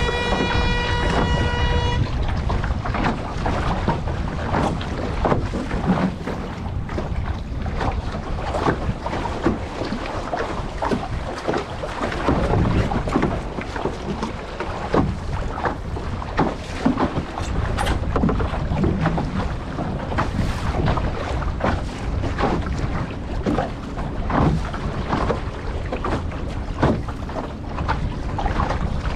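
Wind rushing over the microphone and water splashing and rushing past an International Canoe sailing dinghy under way. The noise is steady throughout, broken by many short splashes. A single steady pitched tone with overtones sounds for about the first two seconds.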